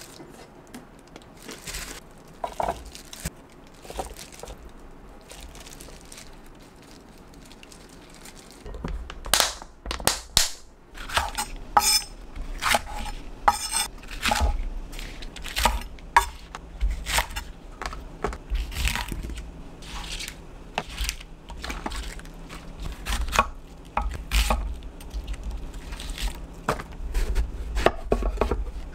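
Gloved hands mixing a seasoned cucumber side dish in a glass bowl, a faint crinkling and squishing; then from about nine seconds in, a chef's knife chopping green onions on a wooden cutting board in quick, uneven knocks, going on into a large bottle gourd near the end.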